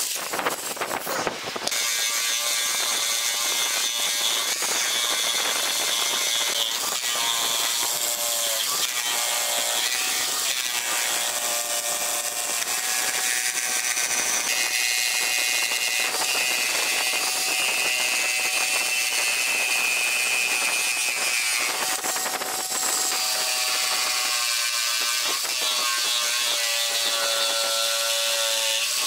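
Bosch corded jigsaw cutting a curve through a thick pine board, its motor running steadily with a whine that shifts in pitch as the blade bites into the wood.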